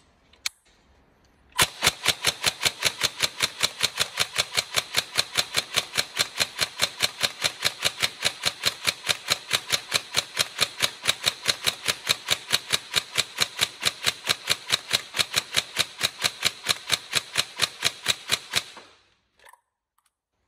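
Tokyo Marui 416 NGRS airsoft electric rifle, fitted with a Warhead high-speed motor, firing one long, unbroken automatic string. Its gearbox and recoil-shock bolt cycle in an even, rapid rattle that starts about one and a half seconds in and stops a couple of seconds before the end.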